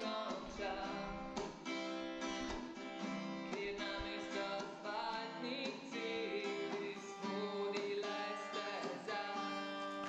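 Background music led by a plucked and strummed acoustic guitar.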